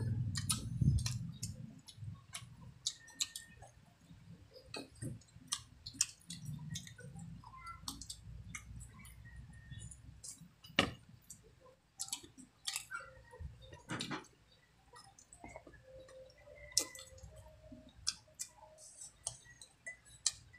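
Eating sounds: irregular wet clicks and smacks of mouths chewing squid and rice, eaten by hand.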